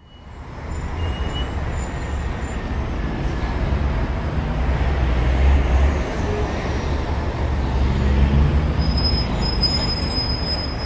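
Loud, steady low rumble with a broad hiss that fades in at the start and swells a little around the middle, with a few faint thin high tones near the end.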